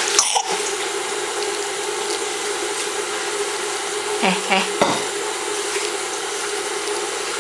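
Steady hissing background noise with a low steady hum under it, unbroken throughout. A click sounds just after the start, and a short murmur from an adult voice comes about four seconds in.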